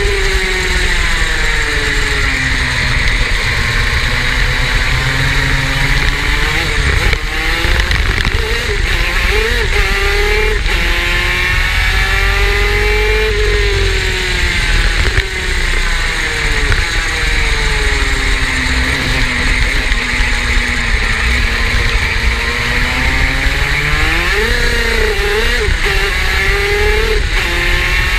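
Superkart's two-stroke engine running hard around a lap, its pitch falling as it slows for corners and rising again as it accelerates out, several times over, with short wavering flares of revs now and then.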